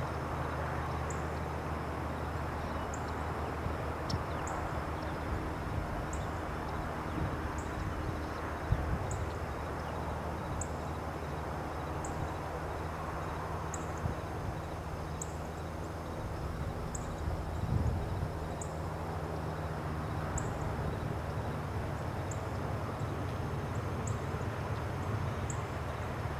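Outdoor ambience: a steady low rumble, with a thin, high chirp repeating about every one and a half seconds.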